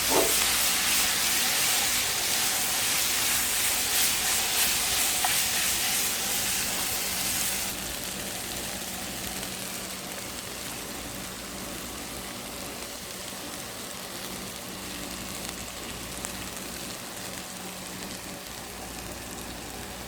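Food sizzling as it fries in hot oil in a pan, a steady hiss that drops somewhat in level about eight seconds in.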